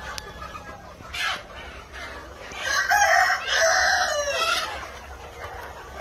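A Kadaknath rooster crows once, about halfway through: a call about two seconds long that ends in a falling note. Under it runs the clucking and chatter of a large flock of Kadaknath chickens.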